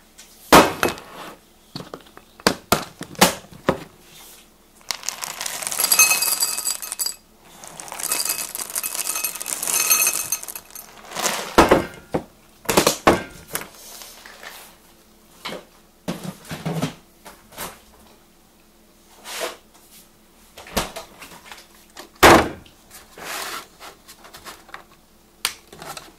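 Kitchen handling sounds on a granite counter: a ceramic mixing bowl and containers being set down and moved, with sharp clinks and knocks, and two long rustling stretches about five and eight seconds in.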